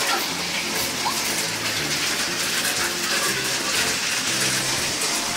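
Hail and heavy rain falling: a dense, steady hiss of water with many sharp ticks of hailstones striking.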